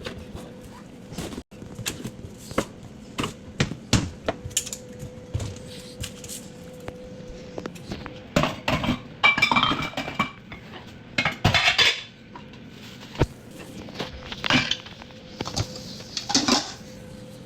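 Utensils knocking, clinking and scraping against pots and plates as food is served, in irregular strokes with a couple of louder clatters around the middle, over a faint steady hum.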